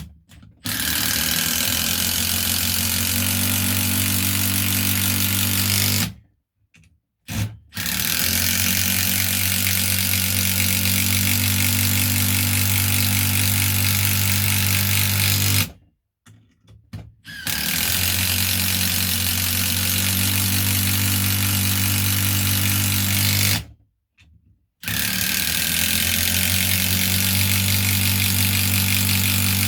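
Cordless brushless impact driver hammering long 8 mm coach screws into pre-drilled oak. There are four separate runs of steady, loud rattling impacts, each several seconds long, with short pauses between screws.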